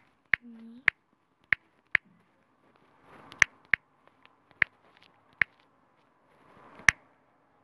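Typing on a smartphone's on-screen keyboard: about nine sharp, separate key clicks at uneven intervals as a message is tapped out letter by letter.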